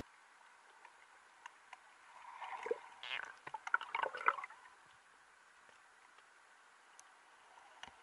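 Muffled water heard from underwater: a faint steady hiss with scattered sharp clicks, and a short spell of gurgling and crackling from about two to four and a half seconds in.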